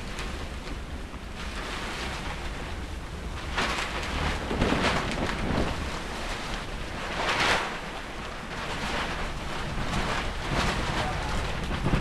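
Blizzard wind blowing hard across the microphone, with no break, surging in stronger gusts several times.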